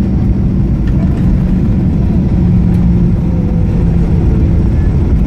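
Boeing 737-800 rolling out on the runway after landing, heard inside the cabin: a loud, steady low rumble of wheels and CFM56 engines. A steady low hum stands out through the middle.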